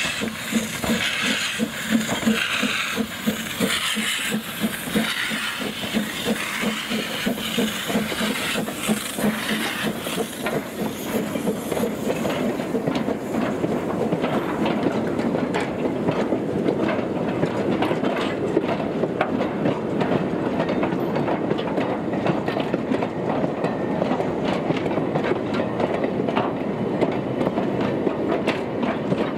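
Narrow-gauge steam locomotive passing with regular exhaust beats and hissing steam, giving way after about ten seconds to the steady rumble and clicking of a long rake of empty slate wagons rolling by over the rail joints.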